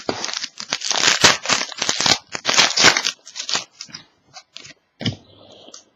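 Crinkling and rustling of a foil trading-card pack and the cards inside being handled: a dense run of crinkles for about the first three and a half seconds, then a few scattered clicks.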